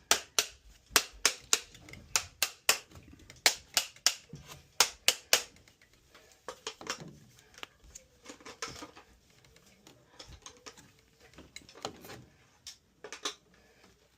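A quick series of sharp taps or clicks, about three a second, for the first five seconds or so, then fainter, irregular knocks and handling sounds.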